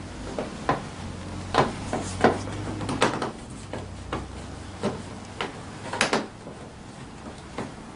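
Irregular clicks and knocks of plastic scooter body panels being handled and fitted while screws are set into the top of the front hood. There are about a dozen, the loudest around two and three seconds in and again about six seconds in.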